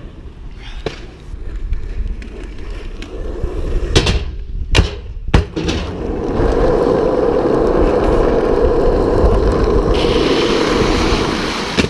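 Skateboard wheels rolling on rough asphalt, with three sharp board clacks about four to five and a half seconds in. From about six seconds in comes a loud, steady rolling rumble of a board riding close by.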